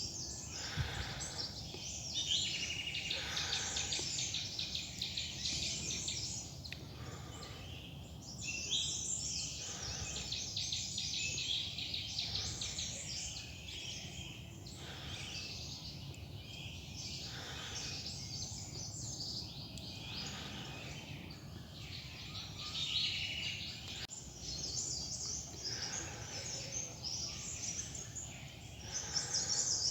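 Many small forest birds chirping and twittering in a dense, overlapping chorus that swells and fades in waves, over a low steady rumble.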